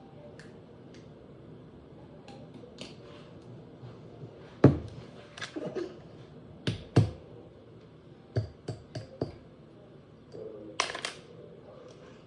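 Small toy containers and pieces being handled and set down on a hard surface: a scattering of sharp clicks and taps, the loudest about halfway through, a quick run of four near the two-thirds mark and another pair near the end.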